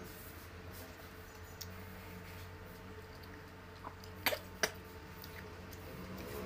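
Two sharp crunches a little over four seconds in, about a third of a second apart, as a wedge of fresh pineapple is bitten, over a faint steady hum.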